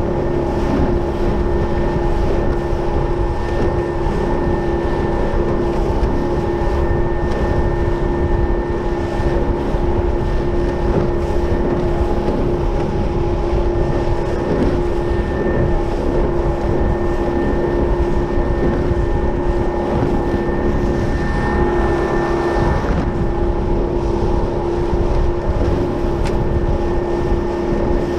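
15 hp Evinrude outboard motor running steadily at speed, pushing a small jon boat across the water, with heavy wind noise on the microphone.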